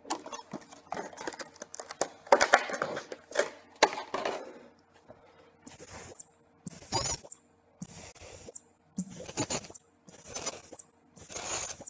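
Plastic packaging clicks and rustles as a small mouse-squeak predator call for foxes is handled. Then the call is blown in six loud, very high-pitched squeaks about a second apart, each held steady for under a second, imitating a mouse's squeak to lure a fox.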